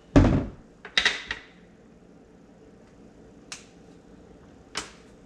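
Handling knocks and clicks from tools and the drilling template: a dull thump at the start, a short clatter about a second in, then two single sharp clicks.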